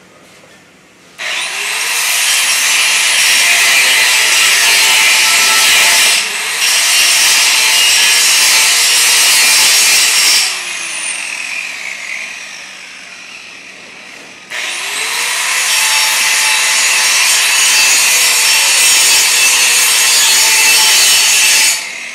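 Angle grinder grinding on the weld of a 6-inch schedule 80 steel pipe in two long runs, the first about nine seconds with a brief dip partway, the second about seven seconds. Between the runs the disc spins down with a falling whine.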